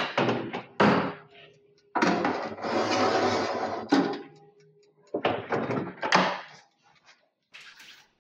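An oven being loaded: knocks and clatter from the oven door and a metal pie tin, with a couple of seconds of steady rushing noise in the middle, then a couple more knocks as the door shuts.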